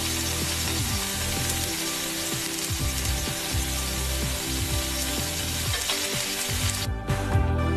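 Battered vegetable pakoras deep-frying in hot oil in a steel wok, the oil sizzling steadily. Near the end the sizzle stops and music comes in.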